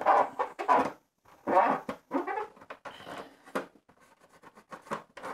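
A soft cloth rubbed in short, quick strokes over the plastic wing panel of a vintage Imperial Shuttle toy, polishing off old grime. The strokes are lighter in the last second or so.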